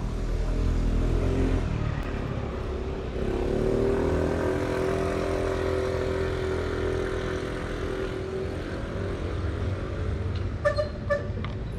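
A motor vehicle's engine passing by, loudest between about four and eight seconds in and then fading, over a low steady traffic rumble. A few short ringing tones sound near the end.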